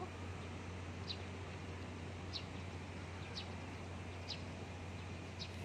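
Short high bird chirps repeating about once a second over a steady low hum, with a sharp click near the end.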